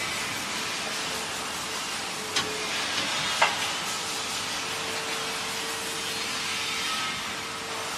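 Vacuum frying machine running with a steady hiss and a faint steady hum. Near the middle come two sharp metal clicks about a second apart, from the fryer's door being opened.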